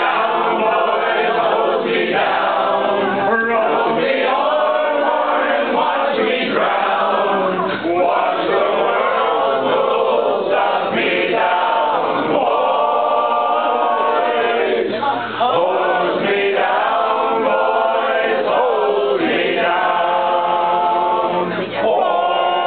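A room full of voices singing a chantey together unaccompanied, a man's voice leading.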